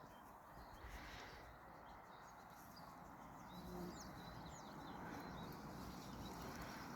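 Faint birdsong: a few short high chirps around the middle, over quiet outdoor background noise.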